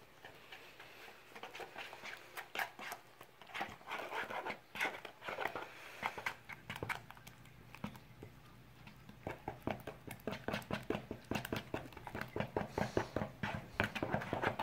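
Plastic spatula stirring banana bread batter in a plastic Tupperware mixing bowl: a run of short scraping, slapping strokes against the bowl, coming quicker and more evenly in the second half as the lumps are stirred out.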